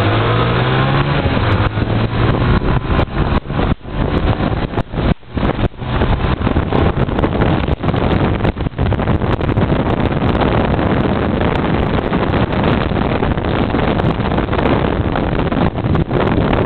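Honda Tornado 250 single-cylinder four-stroke motorcycle engine revving up at the start, then running hard under a heavy rush of wind on the microphone.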